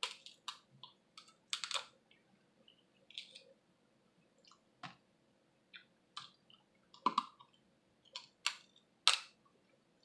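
Close-miked eating of snow crab: irregular sharp clicks, smacks and crackles from chewing the crab meat and from breaking the crab-leg shells by hand. The loudest snaps come in the second half.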